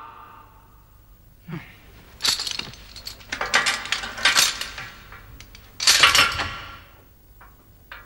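Metal chain and padlock on a wooden cell door rattling and clinking in three bursts as the door is chained and locked.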